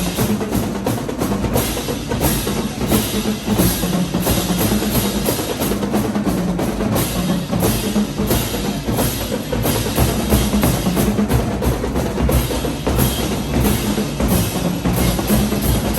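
Marching band drumline playing a fast, steady cadence on snare and bass drums, dense strokes with no break.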